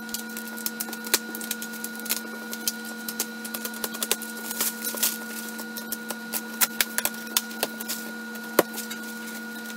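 Clear plastic shrink wrap crinkling and crackling in irregular sharp bursts as it is pulled off a cardboard box, over a steady low hum.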